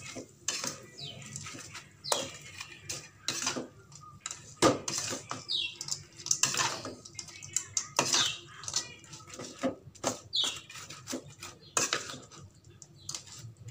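A spatula scraping and clinking against an aluminium wok as anchovy sambal is stirred and tossed, about one stroke a second.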